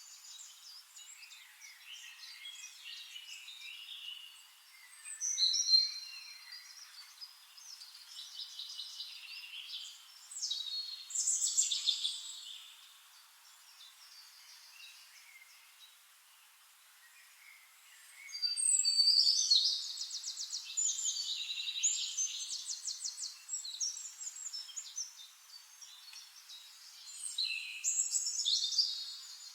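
Several wild forest birds chirping and singing, with short whistles and rapid trills coming and going in bursts. The busiest, loudest stretch comes a little past the middle.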